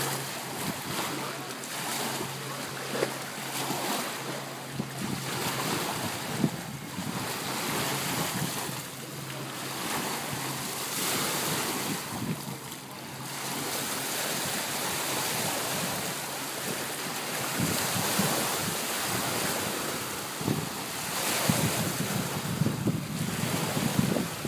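Small lake waves lapping and splashing at a sandy shore, with wind gusting across the microphone in uneven swells. A faint steady hum sits underneath for the first few seconds.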